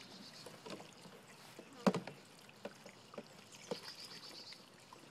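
Water pouring from a plastic bucket into a plastic children's water table and splashing, with several sharp knocks of toys and cups against the plastic; the loudest knock comes about two seconds in.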